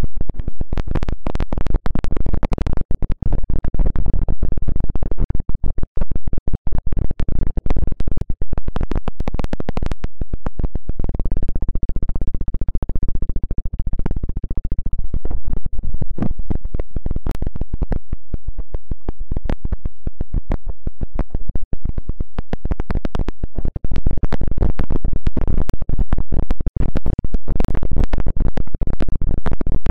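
Fingers rubbing and scratching directly on the microphone, as in an ASMR ear massage: dense, irregular crackling strokes with a heavy low rumble. The strokes are softer for a stretch in the middle.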